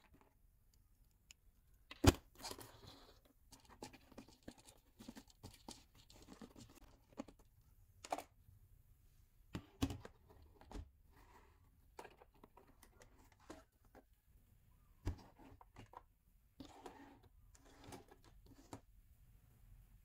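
Handling noises as a toy RC bus is taken out of its cardboard and plastic packaging: scattered clicks, knocks and short rustles, with one sharp knock about two seconds in.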